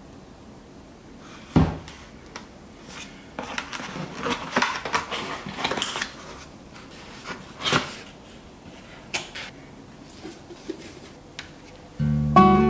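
Hands opening a cardboard shipping box: a thump about a second and a half in, then cardboard scraping and rustling as the flaps and locking tabs are worked free, with a sharp knock and a few small clicks. Acoustic guitar music comes in near the end.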